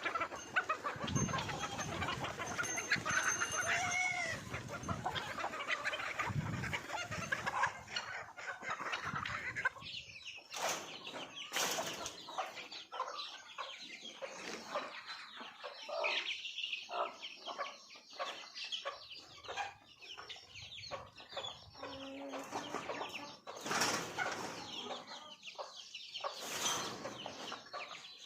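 Flock of desi chickens clucking and calling: a dense overlapping chorus for about the first ten seconds, thinning to scattered separate calls after that.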